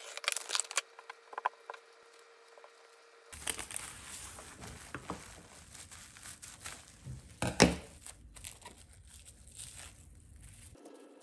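Crinkling and rustling handling noise with scattered clicks, and one louder clatter about seven and a half seconds in.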